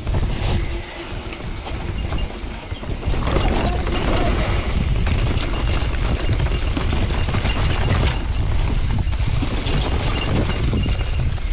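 Mountain bike riding down a dirt forest trail: wind buffeting the helmet camera's microphone in a steady low rumble, with tyres running over dirt, leaves and roots and scattered knocks and rattles from the bike.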